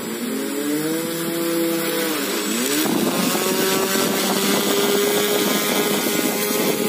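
Brushless motor spinning a propeller on a homemade wire-hung air train, giving a loud, high whine. The pitch rises, falls away about two seconds in, then climbs again and holds steady as the train runs along the wire.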